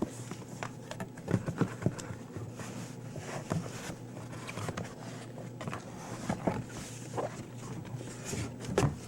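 A heavily taped cardboard shipping box being handled and worked open: irregular knocks, scrapes and rustles, the loudest knocks about a second and a half in and near the end, over a steady low hum.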